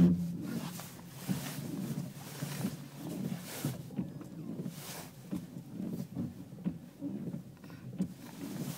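Chevrolet Onix steering making the noise under complaint: irregular low-pitched sounds repeating two or three times a second, with a few short, sharp knocks, as the steering is worked.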